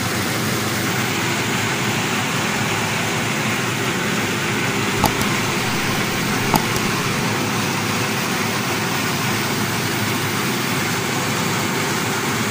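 Belt-driven rice mill running steadily, a loud even machine noise as it hulls and polishes palay into rice. Two short sharp clicks stand out about five and six and a half seconds in.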